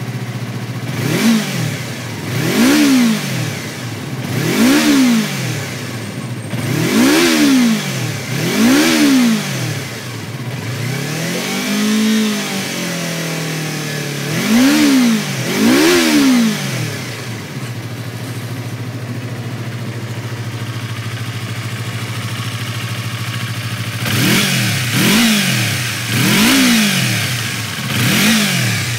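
2018 Yamaha MT-25's 249 cc parallel-twin engine, breathing through an aftermarket WRS carbon muffler, idling and blipped over and over: about a dozen short throttle revs that rise and fall quickly. Around the middle comes one slower, longer rev, then several seconds of steady idle before the last few blips.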